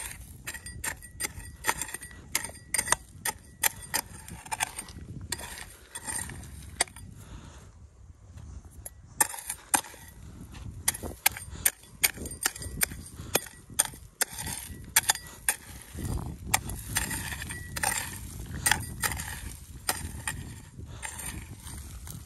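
Metal hoe blade chopping and scraping into stony, gravelly soil, with sharp clinks as it strikes stones, about two strokes a second. There is a short pause about eight seconds in.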